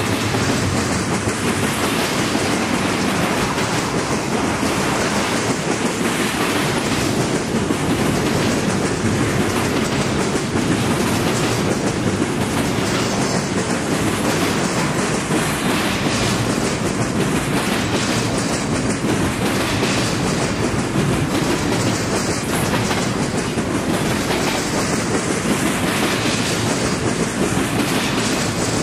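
Intermodal freight train's double-stack container cars and trailer flatcars rolling past steadily, a continuous rumble of wheels on rail with faint scattered clicks.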